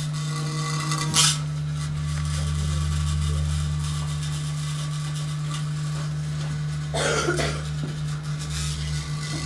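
Amplified tabletop rig of an electric guitar laid flat, effects pedals and a mixer, giving a steady electric hum with a lower drone swelling in after about two seconds. A sharp metallic clank comes about a second in, and a rasping scrape at about seven seconds.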